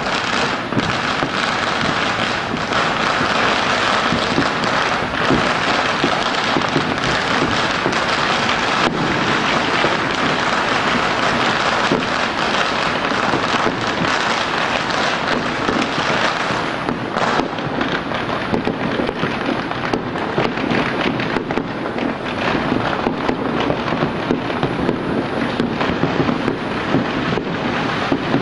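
Firecrackers and fireworks going off all over a city at once, merging into a steady crackle like heavy rain, with sharp pops and bangs scattered through it.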